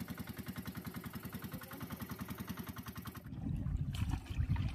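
Boat engine running with a steady rapid thudding, about eleven beats a second; it cuts off about three seconds in. Water splashing follows as a fishing line is hauled hand over hand into the boat.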